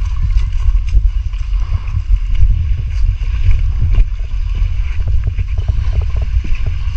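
Wind buffeting a GoPro Hero9's microphone: a heavy, fluttering rumble with no engine tone. Short irregular crunches of footsteps on coarse, shelly sand run through it.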